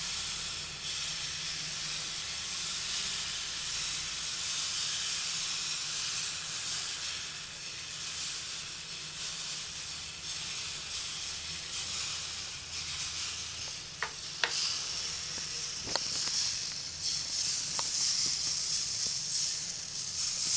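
Rice-flour and egg batter sizzling steadily on a hot oiled flat griddle as it is squeezed on in thin lines. A few faint clicks come about two-thirds of the way through.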